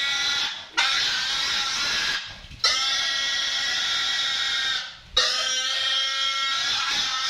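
Piglet squealing in long screams of distress while being castrated with a scalpel, four squeals broken by short gasps for breath.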